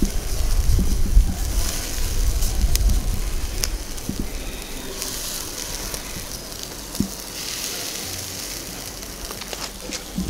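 Melted butter sizzling on chicken drumsticks over a hot charcoal grill, a steady hiss with occasional sharp crackles. A low rumble sits under the first few seconds.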